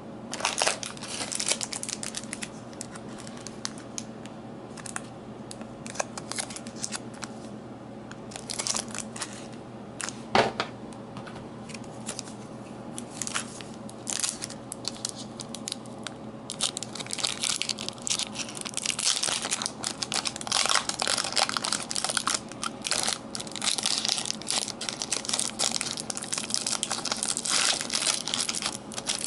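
Foil trading card pack wrapper crinkling and crackling as it is handled, scattered at first with one sharper snap about ten seconds in, then busier in the second half as the pack is pulled open.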